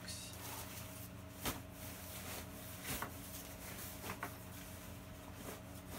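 Faint handling noises as items are pushed into a soft fabric duffel bag: a few soft knocks and rustles, over a steady low hum.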